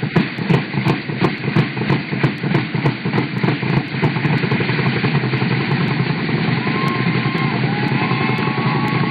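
Music for dancing: a drum struck steadily about twice a second. About four seconds in, the beat gives way to a dense, steady sound with a few high held tones.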